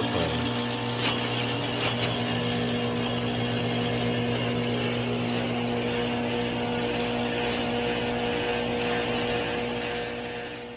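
Steady machine hum with a low, even drone, fading over the last second.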